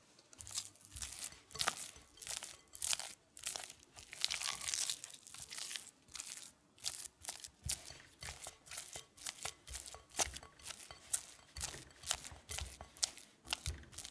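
Silicone spatula beating and smoothing mascarpone cheese in a glass bowl: quick, uneven soft scraping strokes against the glass, several a second.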